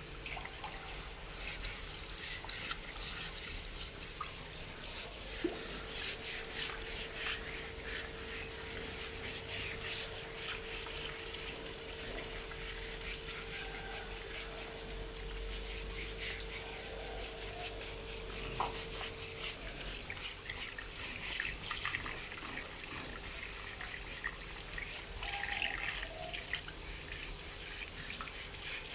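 Stiff plastic brush scrubbing the wet skin of an animal carcass in quick scratchy strokes, with water running over wet concrete.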